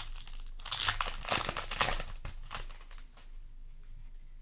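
Foil booster pack wrapper crinkling as it is handled and torn open: a dense crackly rustle for about two seconds that then drops to light handling noise.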